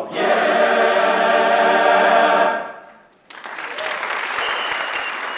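A men's choir singing a cappella holds a final chord for about two and a half seconds, then releases it. After a short gap the audience bursts into applause.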